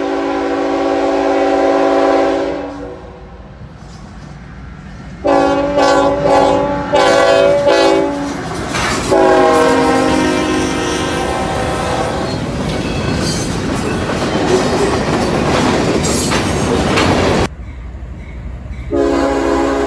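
Diesel freight locomotive air horns sounding a chord of several notes in long blasts, broken by a few short gaps, then the loud rush and clickety-clack of freight cars passing close by. The sound cuts off abruptly, and another locomotive horn chord starts near the end.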